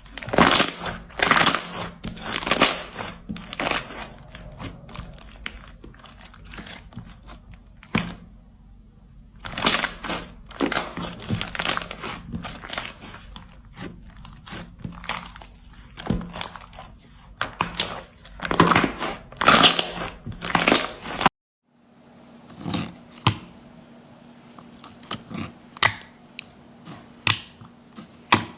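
Slime being squeezed and pressed by hand, crackling and popping in repeated bursts of sharp clicks. About three quarters of the way through there is an abrupt cut, followed by sparser, quieter clicks and pops.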